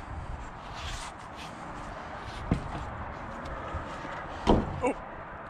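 Scuffs and knocks as a gloved hand grips and shifts a wooden wall stud in a timber frame, over a steady outdoor background hiss. There is a sharp knock about halfway through and a louder one near the end.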